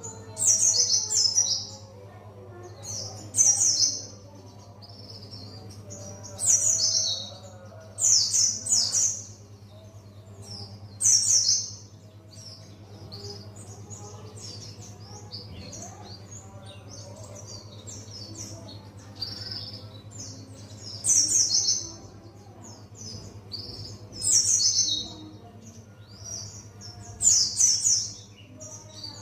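White-eye (pleci buxtoni) singing: loud, high, rapid twittering phrases of about a second each, repeated every few seconds, with softer chirps between. A steady low hum runs underneath.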